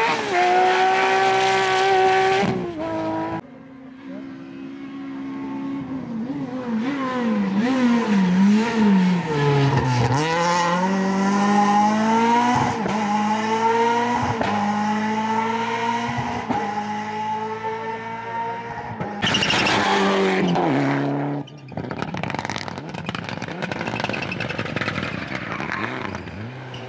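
Rally cars at full attack, one after another: engines rev high, then drop and climb again with each gear change and lift-off. A long pull rises steadily in pitch for several seconds mid-way. The sound cuts abruptly from one car to the next several times.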